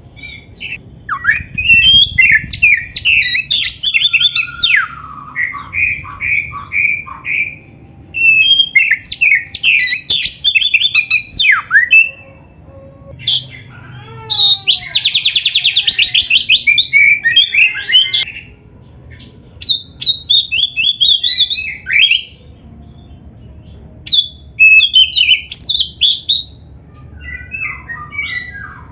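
Oriental magpie-robin (kacer) singing loud, varied whistled phrases in bursts with short pauses between them. About halfway through there is a rapid buzzing rattle, and a run of repeated, falling notes comes a few seconds in.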